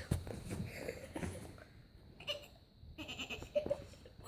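Faint, short goat-like bleats.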